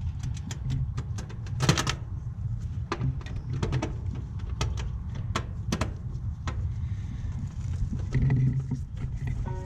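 Irregular small clicks and knocks of wire leads being pushed onto the spade terminals of an air-conditioner run capacitor, over a steady low background rumble.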